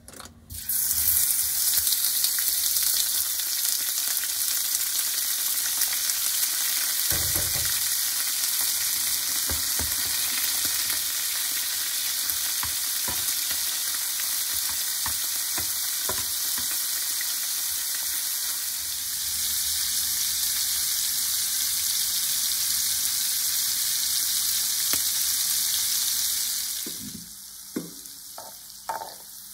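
Raw shrimp hitting hot olive oil in a frying pan: a loud sizzle starts at once and runs steadily as they fry, with occasional knocks of a metal spoon stirring them. Near the end the sizzle cuts off, followed by a few clinks of a metal spatula against the pan and a bowl.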